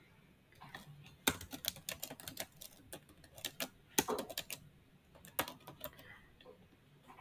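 Computer keyboard typing: quick runs of key clicks that start about a second in and stop a little before the end.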